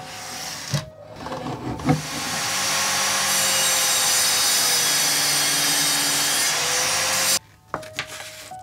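Table saw running and cutting through a workpiece pushed on a wooden crosscut sled, a loud steady sawing noise that builds up over the first couple of seconds and stops abruptly near the end.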